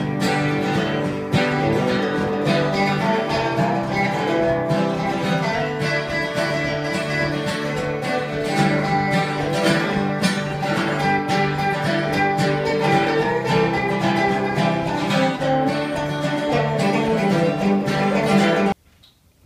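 Instrumental stretch of a country song: acoustic and electric guitars played together at a steady tempo, with no singing. The music stops suddenly near the end.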